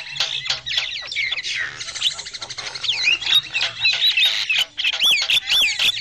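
Javan mynas calling noisily together: a dense, overlapping mix of harsh chatter, squawks and whistles. Near the end a run of arched whistled notes repeats about three times a second.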